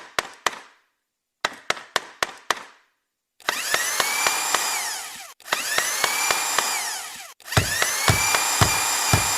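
A hammer driving nails: two quick runs of about five blows each, with a short pause between. Then an electric drill spins up with a rising whine, cuts off and restarts twice. Near the end it runs steadily under heavy regular thumps about twice a second.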